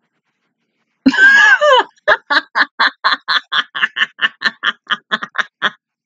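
A woman bursts out laughing: a loud high squeal about a second in, then a run of rhythmic laughs, about four a second, that stops shortly before the end.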